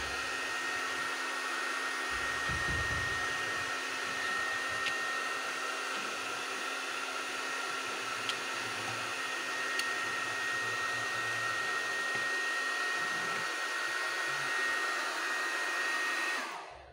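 Toy vacuum cleaner running: a steady motor whir with a constant high whine, switched off near the end.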